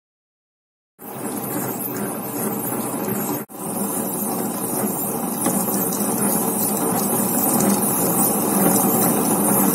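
Tabletop wet grinder running steadily, its stone rollers turning in the drum and grinding soaked urad dal into batter. The sound starts about a second in and cuts out for an instant at about three and a half seconds before carrying on.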